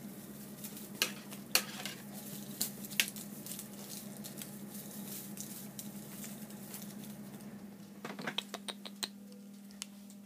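Light rustling and sharp clicks of a shiny feather wand toy as a cat bats at it, with a quick run of about six clicks and taps near the end. A steady low hum runs underneath.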